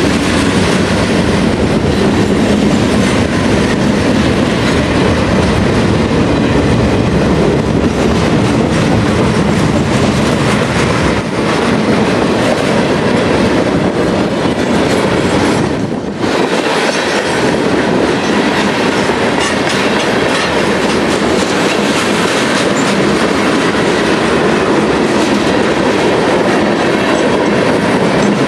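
Freight cars of a long freight train rolling past close by, a steady loud rumble with wheels clattering over the rail joints.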